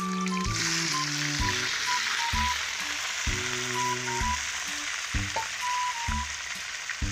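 Native chicken pieces sizzling as they hit hot oil and garlic in a wok, a steady dense hiss that starts about half a second in. Background music plays throughout.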